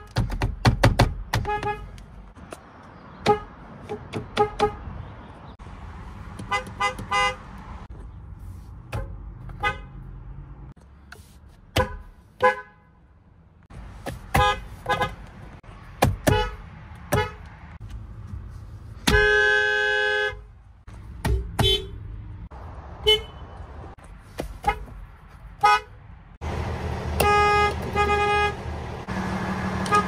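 Horns of many different cars, one after another, each sounded by pressing the steering-wheel horn pad, mostly in one to three short toots. A longer blast comes about 19 seconds in, and a run of toots near the end.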